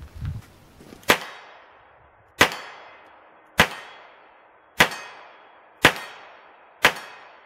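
Smith & Wesson Model 66 .357 Magnum revolver with a 2.5-inch barrel firing six shots, about one every second and a quarter, emptying its six-shot cylinder. Each shot is a sharp report followed by a fading echo.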